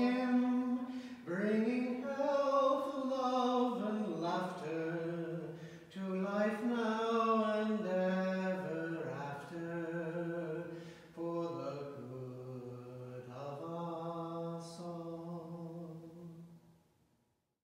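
A man singing solo in slow, long-held notes: the closing phrases of a hymn, the last low note held and fading out near the end.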